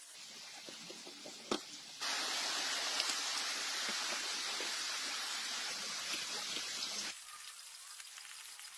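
A steady hiss of spray or escaping air that starts abruptly about two seconds in and cuts off about five seconds later, after a single sharp click.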